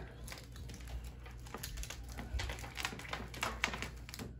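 Twinkly light string being handled: scattered small clicks and rustles of wire and plastic bulbs as a bulb is worked into a hole in a plastic candy cane prop, over a low steady hum.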